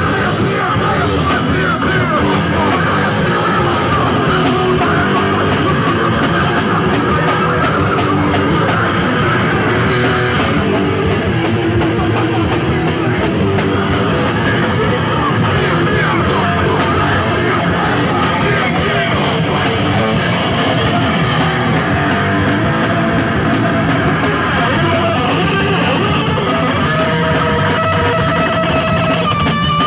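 Live rock band playing loud in a punk style, with electric guitar and a drum kit.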